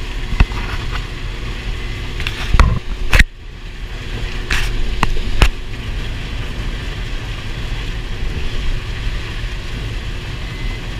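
New Holland TR70 combine running steadily while harvesting corn, with several sharp knocks and clatters in the first half.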